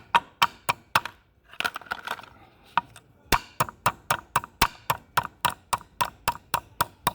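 Metal clamp on a bench vise being loosened with a tool: a run of sharp metallic clicks, irregular at first and then steady at about four a second.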